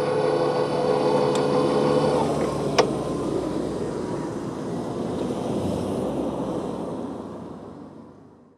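Tobu Nikko Line electric train running past over a level crossing: steady rumble of the train, with a held tone for about the first two seconds and two sharp clicks. The noise fades away over the last couple of seconds.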